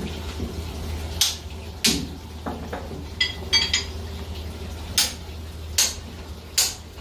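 About ten sharp metallic clanks and clinks at irregular intervals, several ringing briefly, from metal tools and parts being handled during repair work, over a steady low hum.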